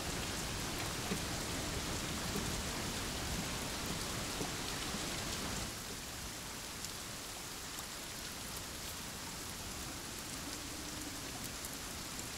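Heavy rain falling steadily, a little softer from about halfway through.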